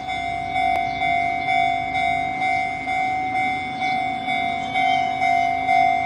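Japanese level-crossing warning bell ringing its repeated 'kan-kan' chime, about two even strikes a second: the signal that a train is approaching and the crossing is about to close.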